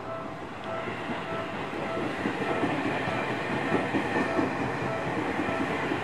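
Railway level-crossing warning bell dinging steadily about twice a second, over the running noise of a train, which swells from about two seconds in.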